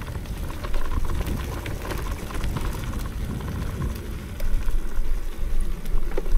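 Mountain bike rolling along a forest trail: tyres crunching and crackling over dirt and leaves with rattles from the bike, over a low rumble of wind on the camera microphone.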